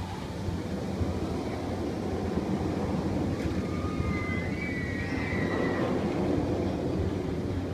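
Steady low rumble of a people-mover ride car running along its elevated track. Faint high tones come through briefly around the middle.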